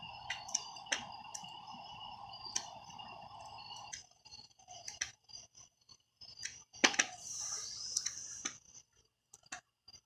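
Small wood fire in a fire pit crackling, with scattered sharp pops over a steady high-pitched drone. A loud knock and a rustle come about seven seconds in.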